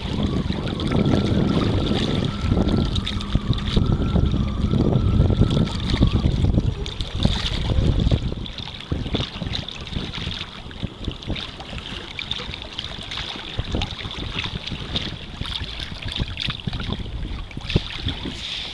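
Wind buffeting the microphone over water lapping and splashing against a sea kayak, heavy for the first six seconds and then easing to a lighter wash with small splashes.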